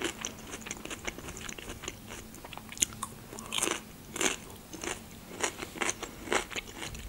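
Close-up chewing of crunchy food: a run of irregular crisp crunches and crackles.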